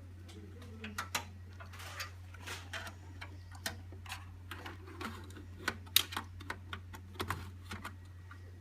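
Irregular light clicks and taps, one or two a second at uneven spacing, over a steady low hum.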